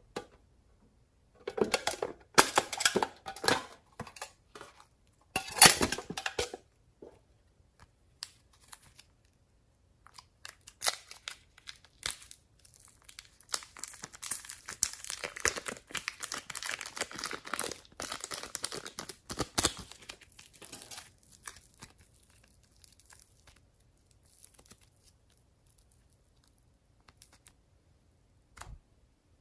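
Fluffy pink slime being pulled from its tub and torn apart by hand, with plastic wrap crinkling. The sound comes first in short bursts, then as a longer stretch of crackly tearing, with one soft plop near the end as the slime is dropped onto glossy slime.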